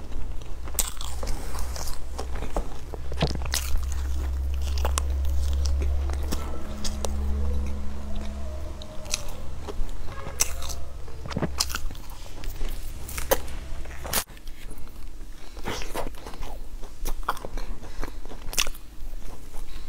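Close-up biting and chewing of flaky baked pastries, with many crisp crunches and crackles of the pastry crust between softer chewing.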